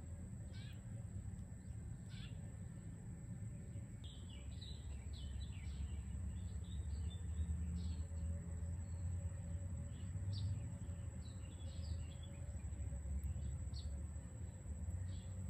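Small birds chirping in short scattered calls, busiest through the middle, over a steady low rumble and a thin constant high tone.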